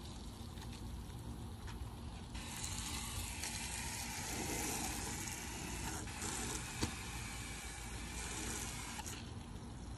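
Water spraying from a garden hose nozzle onto a car, a steady hiss that starts a couple of seconds in and stops near the end, with one sharp click about seven seconds in.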